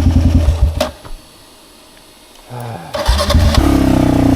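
Carbureted motorcycle engine running, then dying away about a second in. After a short quiet pause it cranks briefly, catches about three seconds in and keeps running. The bike has a starting problem: it stalls and is hard to restart.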